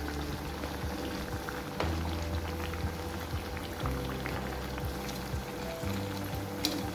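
Background music with low held notes that change every second or two, over a cooking pot's liquid bubbling with scattered small pops.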